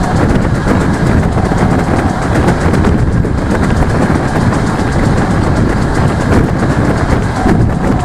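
Steady running noise of a DR1A diesel multiple unit under way, heard from an open carriage window: wheels rumbling on the rails with the diesel engine underneath. A faint steady whine fades within the first second and comes back near the end.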